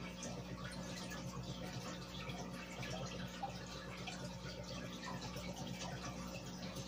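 Aquarium sponge filters and air bubbles trickling steadily, with many small pops as bubbles break at the water surface, over a steady low hum from the air pump.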